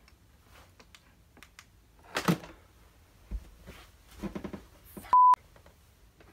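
A short, loud, steady censor beep about five seconds in, with all other sound muted while it lasts. Before it there are a couple of brief muffled vocal sounds and light knocks.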